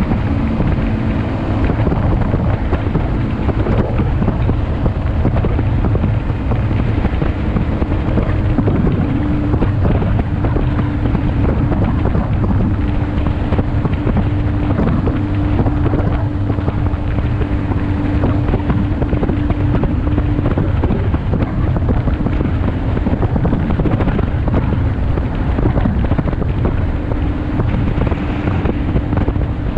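Ultralight aircraft's engine running steadily in flight, with heavy wind rush on the microphone. The engine note drops slightly about two-thirds of the way through.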